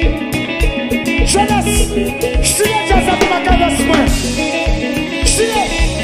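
Haitian kompa music playing, with a steady dance beat and singing.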